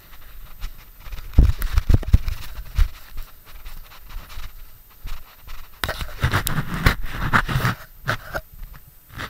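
A climber's footsteps and scuffs on a flat felt roof and brick edging, thumping and scraping close to the microphone in two bouts: about a second in and again from about six seconds.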